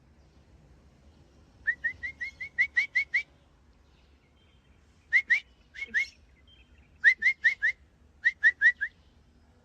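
Series of short, rising whistled chirps, in quick runs of two to about nine notes separated by pauses, used to call a lost lovebird back.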